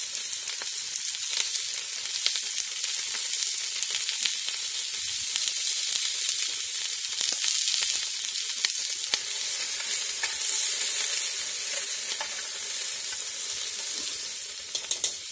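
Chopped onions sizzling in hot rendered pork fat in a cauldron, a steady frying hiss. Near the end a spoon stirs them, clicking a few times against the pot.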